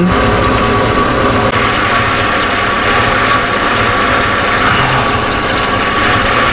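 2004 Chevy truck engine idling steadily, heard from underneath the truck.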